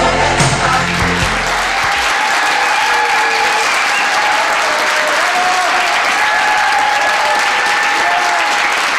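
Audience applauding steadily, while a group song with singing dies away in the first second or two.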